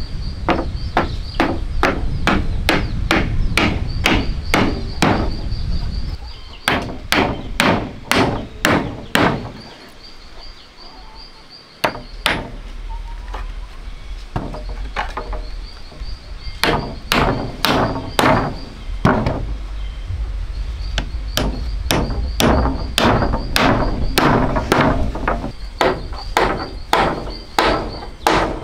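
A hammer driving nails into wooden slats, struck in quick runs of about two to three blows a second, with a pause of a couple of seconds near the middle.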